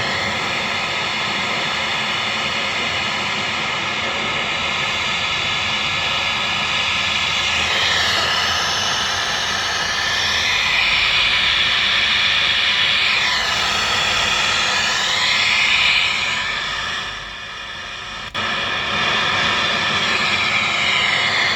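Marshall DSL40CR valve guitar amp hissing with gain, master and volume all at maximum and no guitar playing: a loud, steady hiss with no 60 Hz mains hum, a sign the amp is working as it should. The hiss drops away briefly about seventeen seconds in, then cuts back in suddenly with a click.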